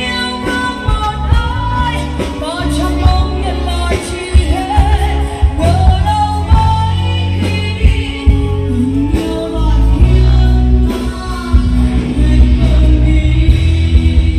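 A band playing a pop song with a singer, over heavy bass and a steady drum beat.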